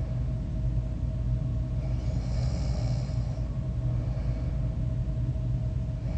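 A sleeping person snoring and breathing over a steady low rumble, with an airy breath drawn about two seconds in.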